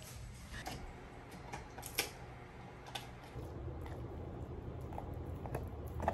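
A pit bull–Weimaraner mix dog gnawing a chew treat: faint scattered clicks and crunches over a low steady hum.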